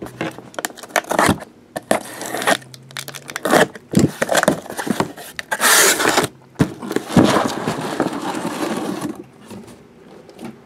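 Paper and plastic packaging being handled: rustling, scraping and tearing in a string of short bursts, with a longer rustle about six seconds in and another from about seven to nine seconds.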